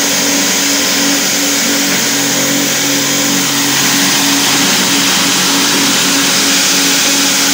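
Belt-driven corn cob grinder powered by an electric motor, running steadily while grinding cobs to powder: a steady hum under a loud hiss, with a lower hum joining about two seconds in.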